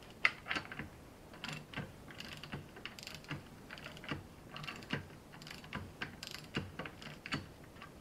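Socket ratchet wrench clicking in short, irregular runs, with light metallic clinks of the tool against the timing end of a Skoda 105 engine block.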